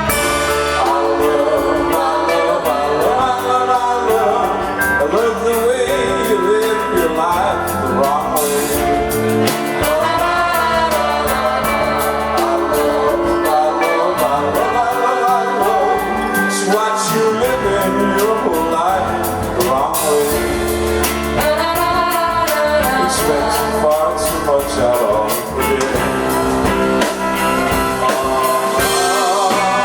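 Rock band playing live, with electric guitars, drums and cymbals, and a wavering sung or played melody line over it.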